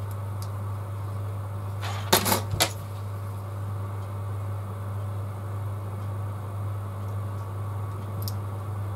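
A quick cluster of sharp clicks and clinks about two seconds in, and one more near the end, as small tools are handled and set down on a workbench, over a steady low hum.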